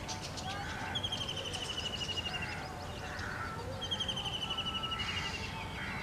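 Wild birds calling by a lake. One bird gives a long, rapid, slightly falling trill twice, about a second in and again about four seconds in, while other birds add shorter calls and caws. A low steady hum runs underneath.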